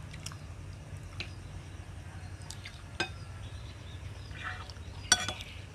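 Metal spoons clinking and scraping on plates during a meal: a few scattered light clinks, the loudest about five seconds in, over a faint low hum.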